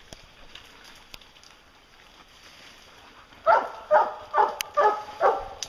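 A hound barking treed at a black bear up a pine: five quick, loud barks in a row starting about three and a half seconds in. This is the sign the hounds are holding the bear up the tree.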